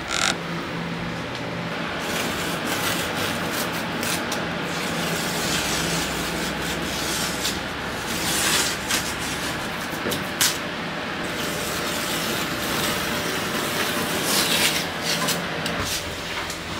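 Wood being handled and rubbed during carpentry: a steady scraping and rubbing over a low hum, broken by several short, sharper scrapes.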